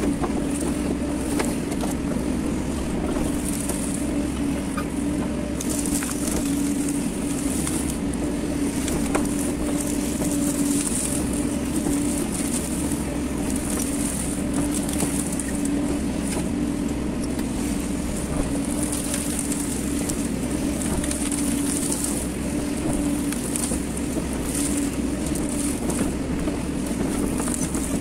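Hyundai hydraulic excavator's diesel engine running steadily under working load, a constant hum, with a high hiss that swells and fades as the hydraulics move the boom and bucket.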